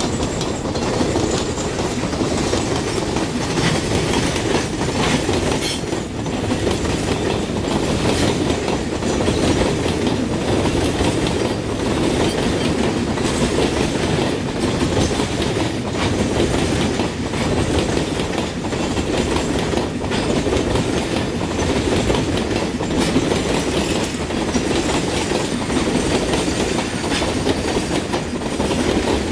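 Loaded freight wagons rolling past close by, their steel wheels clacking over the rail joints in an unbroken stream of clicks over a steady rumble.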